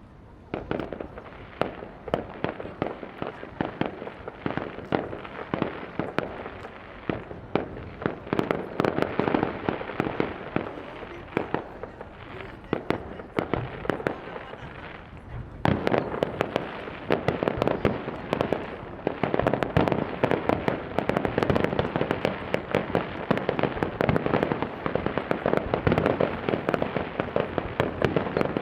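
Fireworks display: a dense barrage of bursts with a rapid crackle of many small reports, starting about half a second in and growing louder about halfway through.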